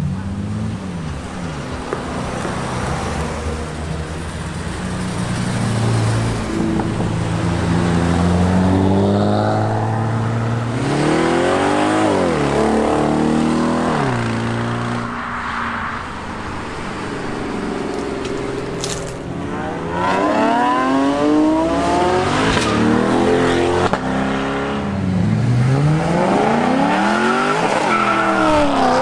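Several car engines revving hard and accelerating past, one after another. Each engine's pitch climbs as it pulls and then drops as it goes by.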